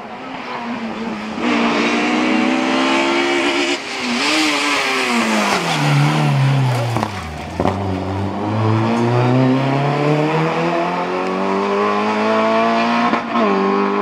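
Rally car engine running hard, its pitch falling steeply as the car slows for a tight turn about halfway through. It then revs up steadily as the car accelerates away, with a gear change near the end.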